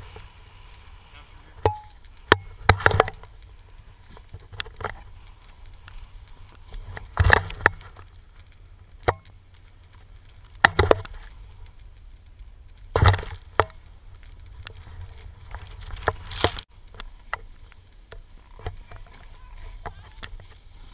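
Skiing through deep powder, heard on a camera that moves with the skier: a steady low wind rumble, broken by about ten irregular sharp knocks and scraping swishes from skis and snow.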